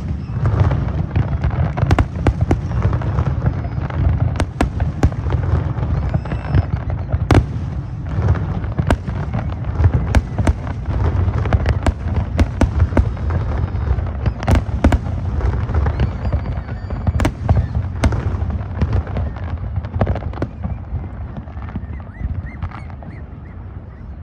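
Fireworks display: rapid, overlapping bangs and crackles over a continuous low rumble, thinning out near the end.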